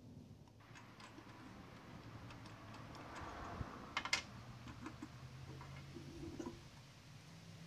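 Faint clicks and knocks of a MIG welder's wire spool being handled, as the spool's retaining knob is turned and the spool is slid off its spindle. The loudest is a sharp double click about four seconds in.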